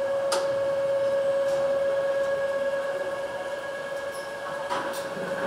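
Car assembly line noise: a steady mid-pitched machine tone over a background hum, with a sharp clank about a third of a second in and another near the end.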